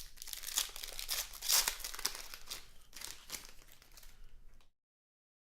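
Trading card pack wrapper crinkling and cards being shuffled and handled by hand, in irregular rustles and crackles. The audio cuts to dead silence near the end.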